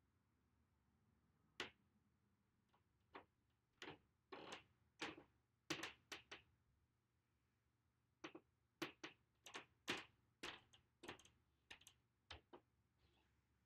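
Fine paintbrush tapping and dabbing on a stretched canvas: scattered light clicks and taps, some coming in quick clusters, over a quiet room.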